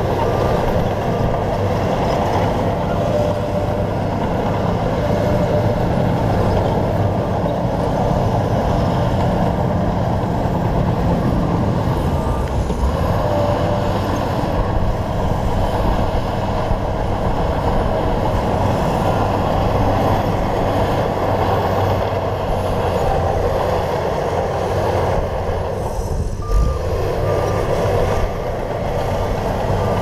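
Shantui crawler bulldozer's diesel engine running steadily as the dozer pushes soil and moves about, with a reversing alarm beeping at the start and again near the end. There is a single knock about three-quarters of the way through.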